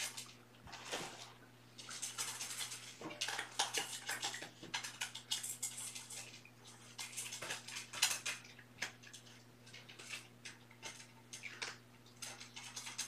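Two kittens eating dry kibble from one bowl: irregular crunching and kibble clicking against the bowl, coming in quick clusters with short pauses between. A steady low electrical hum runs underneath.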